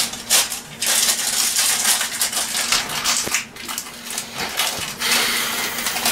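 Thin plastic packaging crinkling and rustling in irregular bursts as it is handled and pulled at.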